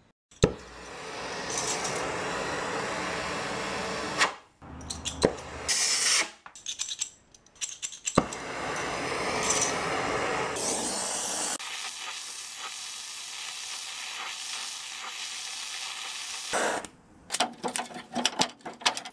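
Gas torch flame burning with a steady hiss, heating a steel exhaust pipe so it can be bent. It starts with a sharp click about half a second in, breaks off a few times, and stops a couple of seconds before the end.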